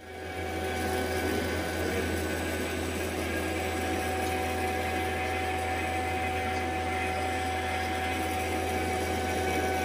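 Refrigeration vacuum pump running with a steady, even drone and a constant hum, evacuating the mini split's line set ahead of the micron reading.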